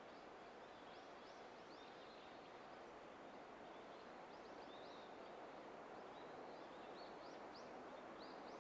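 Near silence: faint outdoor background hiss with scattered faint short bird chirps.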